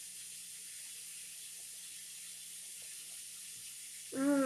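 Steady background hiss with a faint low hum, and no clear sips or swallows. About four seconds in comes a short voiced sound from the drinker, under a second long.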